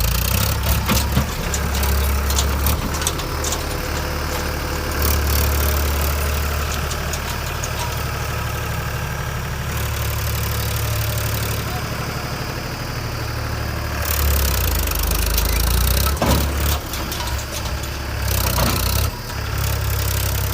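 Diesel engine of a JCB 3DX backhoe loader running while it works, a deep rumble that swells and eases several times, with bursts of clatter around the middle and near the end.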